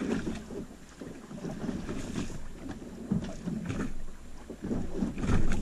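Water slapping against the hull of a small boat drifting on a choppy sea, with wind buffeting the microphone. The sound comes in irregular surges, the loudest a little after five seconds in.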